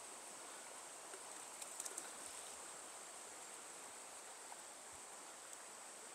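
Faint outdoor ambience of insects, a steady high-pitched drone, with a few faint ticks about two seconds in.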